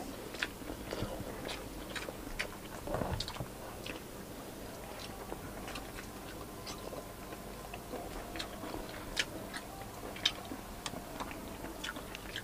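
Close-up chewing and mouth smacking of people eating grilled stuffed tilapia by hand, with many short sharp clicks scattered throughout.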